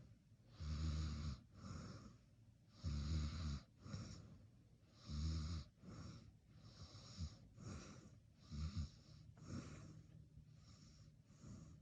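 A sleeping person snoring: a low snore about every two seconds, each followed by a softer breath. After about six seconds the snores turn fainter and shorter.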